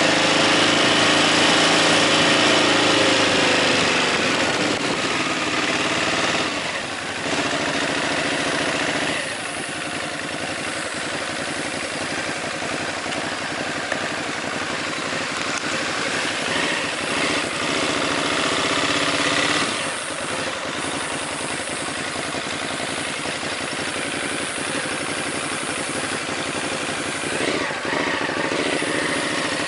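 Ducati Hypermotard 939's L-twin engine through an Akrapovic exhaust. It is loud for the first few seconds, with the pitch changing under throttle, then eases off about six seconds in. After that it runs at lower revs, with a few short rises in engine note.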